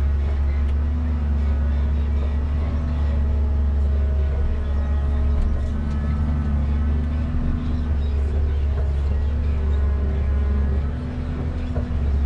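Komatsu 875 forwarder's diesel engine running steadily, heard from inside the cab as a strong low drone with steady tones above it; the level dips briefly near the end.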